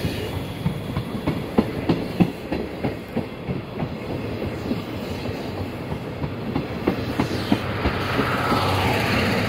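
Steam-hauled passenger coaches rolling past close by, their wheels clattering over the rail joints in an uneven run of sharp clicks and knocks over a steady rumble.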